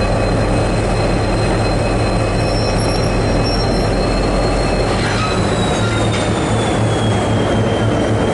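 V/Line N-class diesel-electric locomotive, with an EMD 12-645 two-stroke diesel, running loudly close by: a steady low engine drone under a dense mechanical noise. A thin high whine sits on top; it dips in pitch about five seconds in and rises again near the end.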